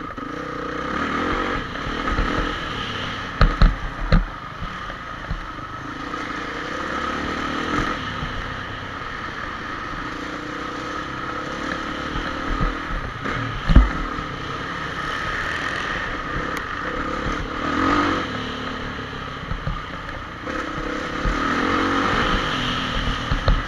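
Honda CRF450 four-stroke single-cylinder motocross bike heard from on board, its engine revving up and down as it is ridden around a dirt track. There are several sharp thumps a few seconds in and another loud one near the middle.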